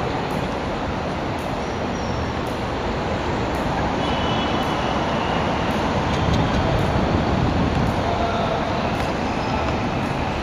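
Steady outdoor city noise: a low rumble of road traffic.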